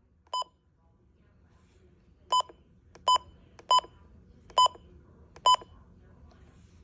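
Midland weather alert radio giving six short, high beeps at uneven intervals.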